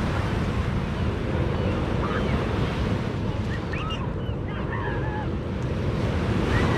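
Small waves breaking and washing up a sandy beach, with wind buffeting the microphone as a steady low rumble. A few faint short high calls chirp in the background about halfway through and again near the end.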